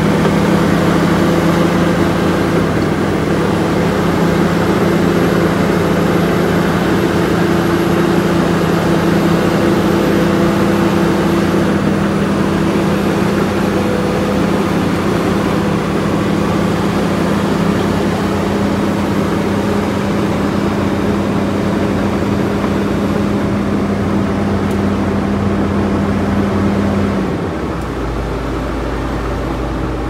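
Komatsu D68ESS crawler bulldozer's diesel engine running steadily as the machine works. Near the end the engine note changes and drops lower.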